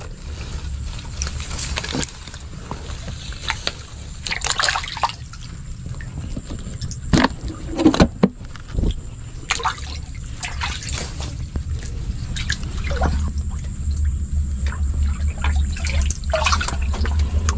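Shallow muddy water being splashed and stirred by a hand, with trickling and dripping and several short splashes over a steady low rumble.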